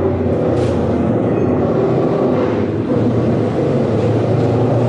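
Motorcycle engine running steadily at a constant speed.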